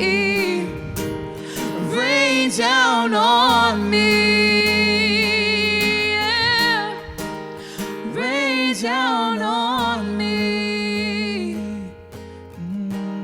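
Live worship music: a singer's voice in long, wavering runs over sustained chords and acoustic guitar, in two phrases, the second tailing off near the end.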